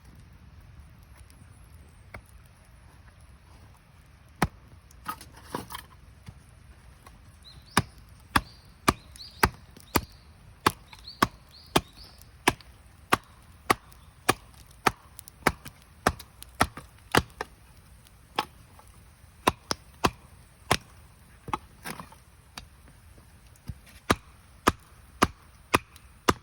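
Wood being chopped: a long run of sharp strikes, about one and a half a second, with a few short pauses, starting about four seconds in.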